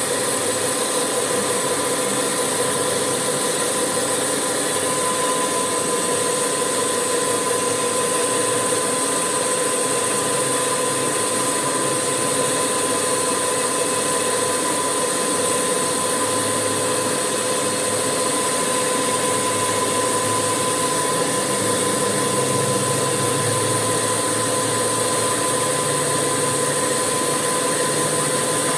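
Steady mechanical drone of running machinery, with a constant whine that holds one pitch and does not change.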